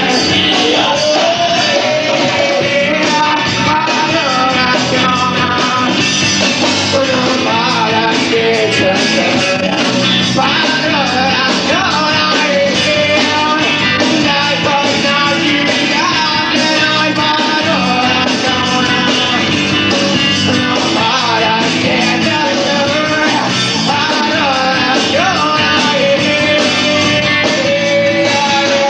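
Rock band playing live: a singer's voice over guitars and a steady, full band sound.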